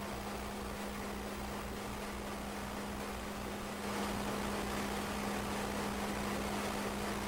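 Steady drone of plant machinery around a waste-pyrolysis distillator, with a constant low hum; it gets slightly louder about four seconds in.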